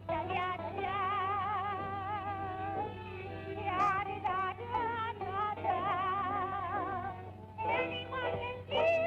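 Music with a high, wavering sung melody, likely an end-credits song.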